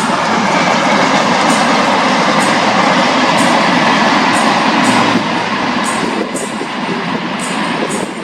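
Diesel-hauled passenger train running past at speed: a steady rumble and rush from the train, with the wheels clicking over rail joints. It eases slightly after about five seconds.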